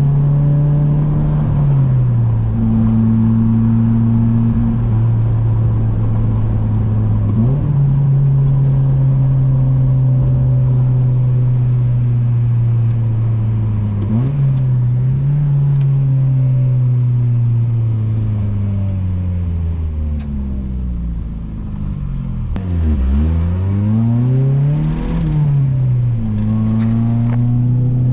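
Four-cylinder engine of a 1990s Honda heard from inside the car while driving: a steady engine note that drops about two seconds in, holds through the middle, sinks slowly as the car slows, then revs up and down again near the end.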